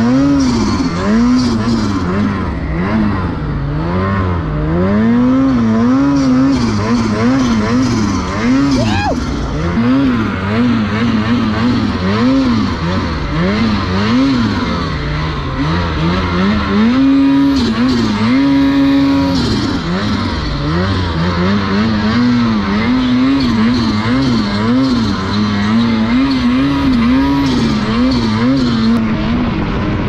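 2021 Ski-Doo turbo snowmobile's two-stroke engine revving up and down over and over as the rider works the throttle through deep powder. It holds one steadier rev for a couple of seconds a little past halfway.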